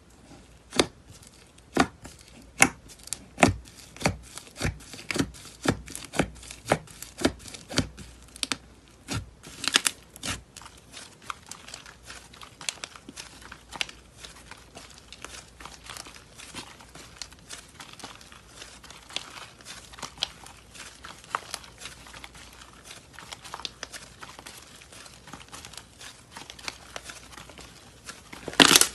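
Slime being squeezed and handled, making sharp pops and crackles. For the first several seconds there are about two loud pops a second, then a denser run of smaller crackles, and a loud cluster of pops near the end.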